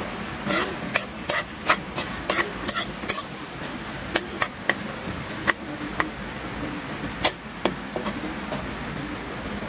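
Spatula knocking and scraping against a wok while pineapple chunks are stirred in boiling sugar syrup: a quick run of sharp clicks in the first three seconds, then scattered knocks, the loudest a little past seven seconds. Under them, the steady bubbling hiss of the boiling syrup.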